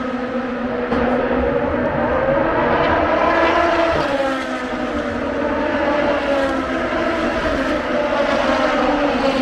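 Engines of several closed-wheel racing cars running on the track together, their notes overlapping and their pitch rising and falling as the cars accelerate, shift and pass.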